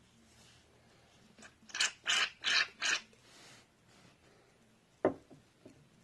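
Fluffy slime being squeezed and pressed by hand, making a quick run of four or five crackly squishes, then a single sharp pop near the end.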